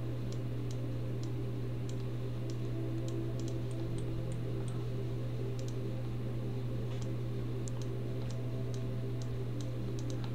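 Light, scattered clicks of a computer mouse and keyboard, irregular and a few per second, over a steady low hum.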